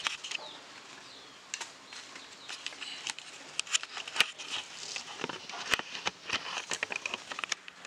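Irregular clicks, taps and knocks of tools and objects being handled on a repair bench, with a few faint bird chirps in the background.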